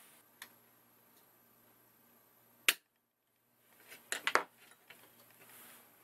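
Sharp clicks of a small disc magnet being handled on a magnetic levitation base board with metal screws and copper coils. One loud click comes about halfway in, followed by a brief gap of silence, then a quick run of four or five clicks as the magnet is pulled off the board.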